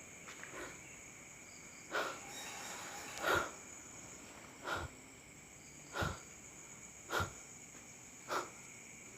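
Slow footsteps, about one step every second and a quarter, on a hard floor littered with debris. A faint steady high-pitched whine runs underneath.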